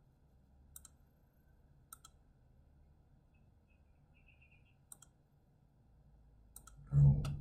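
Computer mouse clicking: about five single, sharp clicks spaced a second or more apart over a faint room hum. Just before the end comes a brief low vocal sound, louder than the clicks.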